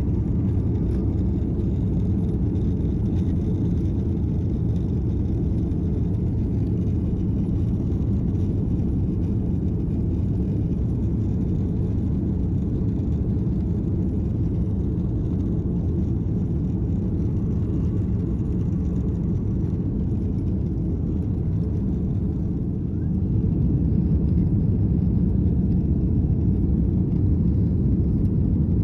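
Steady low rumble of a jet airliner's cabin in flight, engines and airflow noise with no distinct events; it grows a little louder about two-thirds of the way through.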